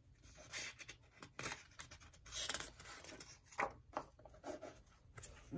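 Paper index cards on a binder ring being flipped over and slid on a tabletop: soft papery rustles and scrapes in several short bursts, with a couple of light taps.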